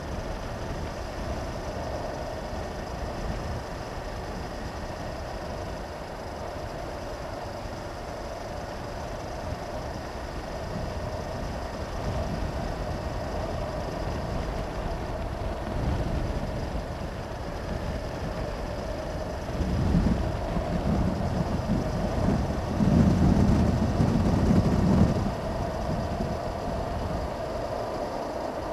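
Honda CB500X's parallel-twin engine running steadily while the bike is ridden along the road, with wind rushing over the helmet-mounted camera. The low rumble swells and grows louder for a few seconds about twenty seconds in.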